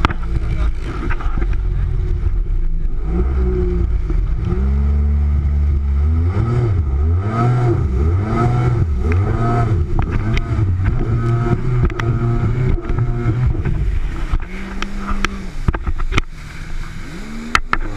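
Jet ski engine running at speed, its pitch rising and falling about once a second as the throttle is worked, with water and wind noise. The engine eases off near the end, where a few sharp knocks come through.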